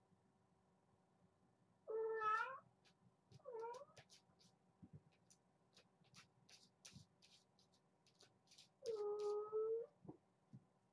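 Kitten meowing three times: a call about two seconds in, a shorter one soon after, and a longer, steadier one near the end, with faint light ticks in between.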